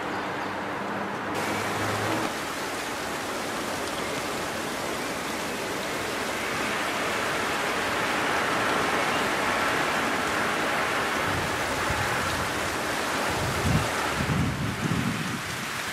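Steady hiss of wind-driven freezing rain and sleet coming down hard at night, with a few short low rumbles near the end.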